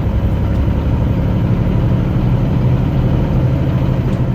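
Semi-truck diesel engine running with a steady low drone, heard from inside the cab.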